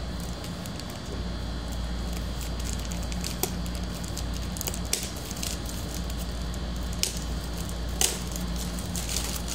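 A heavily wrapped parcel being handled and unwrapped: crinkling packaging with scattered sharp clicks and cracks, the loudest about eight seconds in, over a steady low hum.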